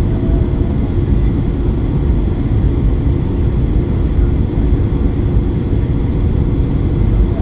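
Steady low rumble of airliner cabin noise, heard from inside the plane during landing, with jet engine and airflow noise and a faint steady hum on top.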